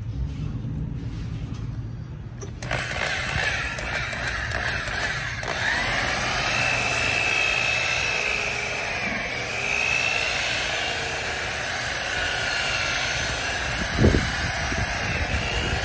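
Corded rotary polisher spinning its pad against a plastic headlight lens. The motor whine starts about two and a half seconds in, and its pitch rises and wavers as the pad is worked across the lens. A brief thump comes near the end.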